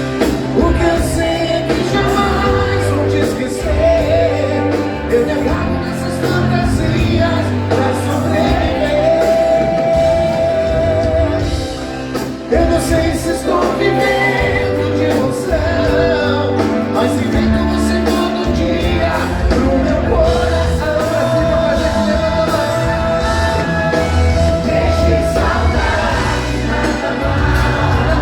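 Pop-rock band playing live, with a sung melody carried over bass and drums.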